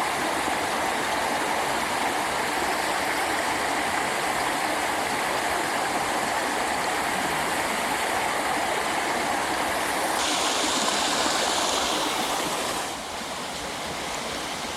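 Creek water rushing steadily, brighter about ten seconds in, then dropping somewhat in level near the end.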